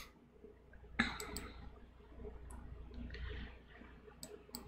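Several faint, sharp clicks from computer controls at irregular intervals: a quick cluster of three about a second in, then single clicks spread through the rest, over a low steady hum.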